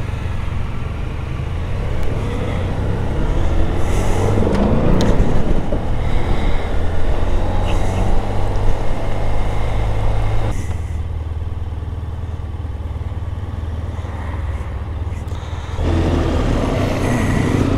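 Motorcycle engine running while riding, revving up and pulling harder with a rising pitch in the first half. It eases off about ten seconds in, then picks up again near the end.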